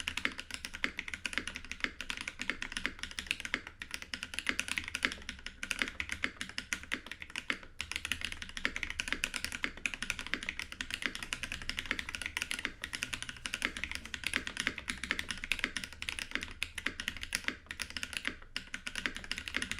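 Typing on a mechanical keyboard with lubed BSUN Translucent Holy Panda tactile switches on a brass plate, under GMK keycaps: a steady, unbroken stream of keystroke clacks, many per second.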